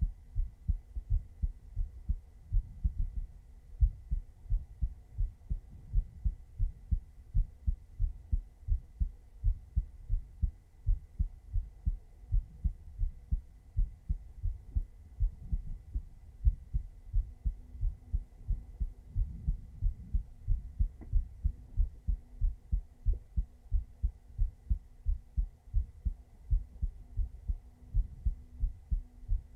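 Human heartbeat heard close up against the chest: a steady, even run of soft, low lub-dub thumps, about two to three thumps a second.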